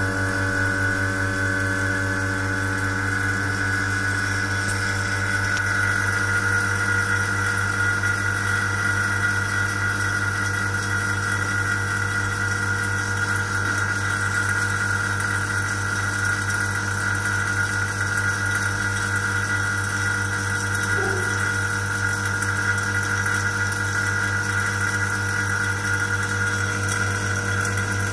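MS111 AC compressor test bench's vacuum pump running steadily, evacuating the air from the connected compressor. It makes a constant low hum with a steady high whine over it.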